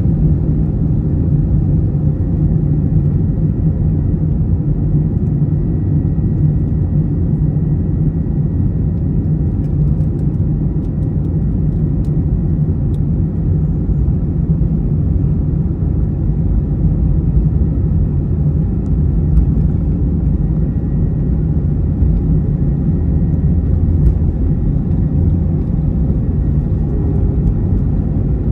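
Jet airliner cabin noise as the plane rolls along the ground toward takeoff: a steady low rumble of the engines and the wheels on the pavement.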